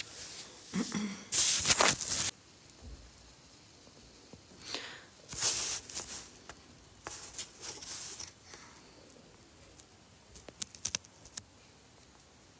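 Short bursts of rustling and scraping, the loudest lasting about a second near the start, then a few fainter scattered ones.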